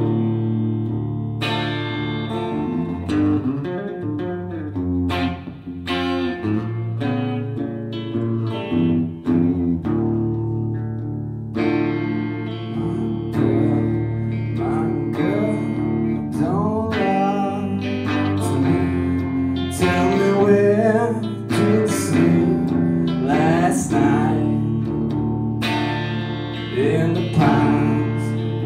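Red double-cutaway electric guitar played through a small combo amp: an instrumental stretch of chords and picked notes, with notes that bend and waver in the middle part.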